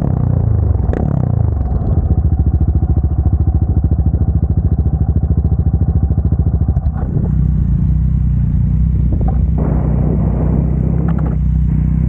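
Motorcycle engine running at low revs with a rapid, even pulsing, changing about seven seconds in to a steadier, smoother note. A sharp click comes about a second in.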